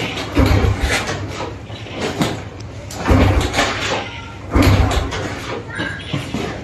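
Honda motorbike kick-started three times, each kick a heavy clunk with a brief turn-over of the engine that does not catch: the engine won't start.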